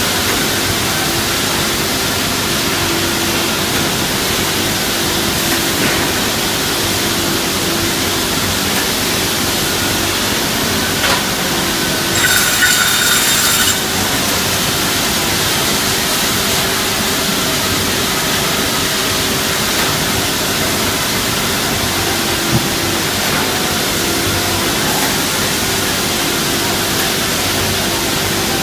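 Woodworking double-end saw running with a steady hum and machine noise, with a louder stretch of high ringing about twelve seconds in.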